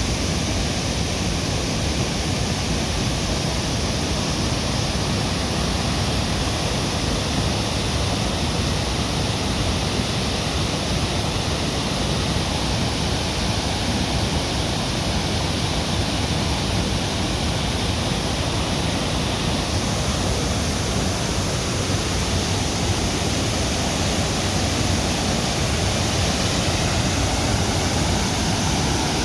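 Waterfall, water falling and rushing in a steady, even wash of noise.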